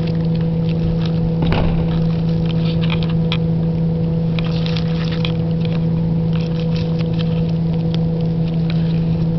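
A steady motor hum at one constant pitch, with scattered small clicks and crackles over it.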